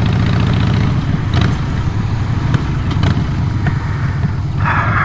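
A vehicle engine running steadily, a low, even throb, with a few faint clicks.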